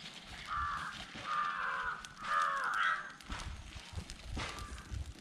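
A crow cawing three times in quick succession, harsh calls each lasting well under a second, the last the loudest.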